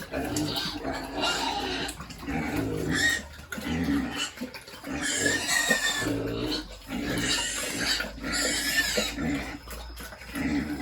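Pigs grunting, a close run of short calls one after another.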